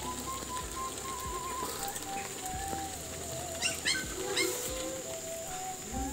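Soft background music with a slow melody that steps between held notes. A short run of bird chirps comes just past the middle.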